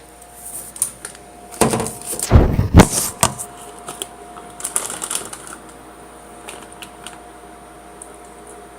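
Clicks and knocks of close handling, loudest in a cluster of thumps about two to three seconds in, then only a few light ticks. Under them runs the steady hum of a microwave oven cooking.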